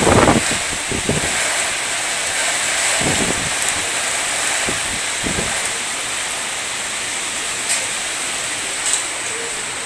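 Storm wind and heavy rain making a steady loud rushing noise, with gusts buffeting the phone's microphone in the first second or so and again about three and five seconds in.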